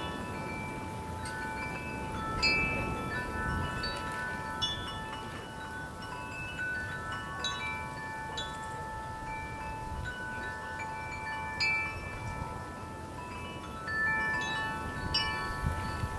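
Metal wind chimes ringing irregularly in the breeze, overlapping tones struck at random and left to ring, over a low rumble of wind on the microphone.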